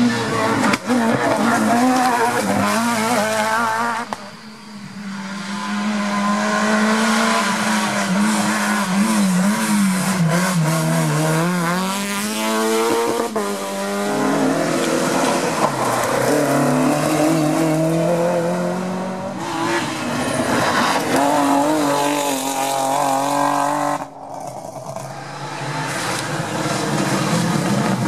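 Rally cars at full throttle, passing one after another on a closed stage. The engines rev up and down sharply through gear changes and lifts, with tyre squeal at times. The last pass is a Mitsubishi Lancer Evo X.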